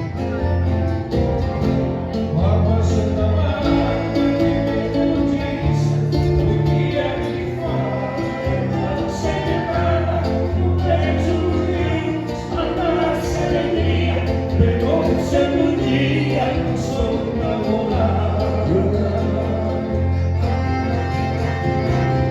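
Music: a song with singing over held bass notes that step from one pitch to the next every second or two.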